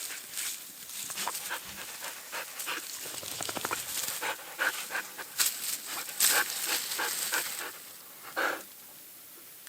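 Dog panting close to the microphone in quick, irregular breaths, with a fast rattling run of breaths partway through.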